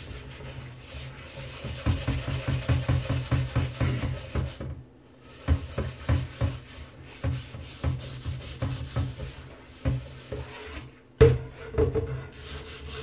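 Stainless steel scrubber scouring a cast iron pan in a stainless steel sink, clearing off residue loosened by a lye bath: rapid rasping strokes that stop briefly twice, with one sharp knock about eleven seconds in.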